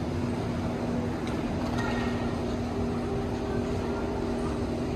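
Steady low rumble with a constant hum from inside a moving vehicle.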